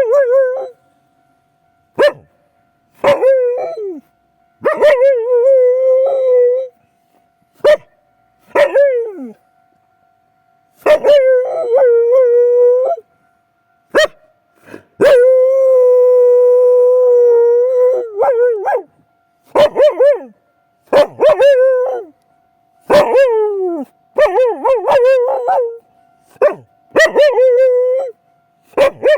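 Akita dog howling in repeated drawn-out bouts mixed with short barks, with one long steady howl about halfway through, set off by a railway crossing's warning bell.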